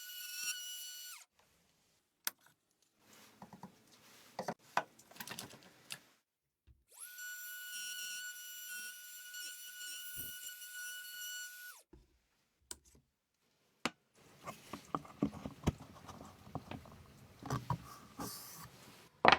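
A small power tool's motor runs at a steady high whine, winds down about a second in, then spins up again for about five seconds and winds down. Between the runs there are knocks and clatter of wood being handled.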